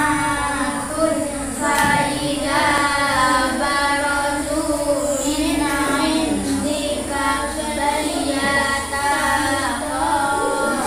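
Children's voices reciting the Quran aloud in a melodic chant, with long held and gliding notes and no breaks.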